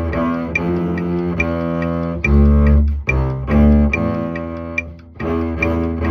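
Double bass played solo with the bow: a passage of sustained low notes changing every half second or so, with two heavier, louder notes in the middle and a brief break in the sound about five seconds in. A faint high tick keeps a regular beat about twice a second underneath.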